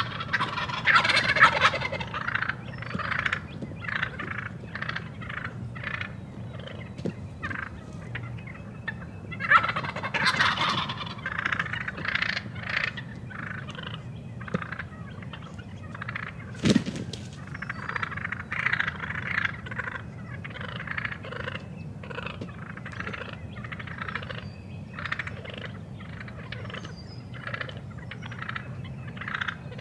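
Eastern wild turkey toms gobbling: three long rattling gobbles, one at the start, one about a third of the way in and one past the middle, with many short turkey calls repeating in between. A single sharp click sounds a little past the middle.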